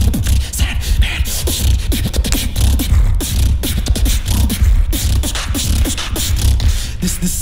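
Competitive beatboxing: a fast rhythm of deep bass kicks that drop in pitch, cut by sharp snare-like clicks and hissing hi-hats.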